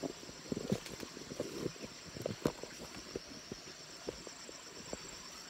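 Handling noise of a phone camera being moved and set in place among leafy undergrowth: irregular clicks, knocks and rustles. Behind it runs a steady high chorus of insects.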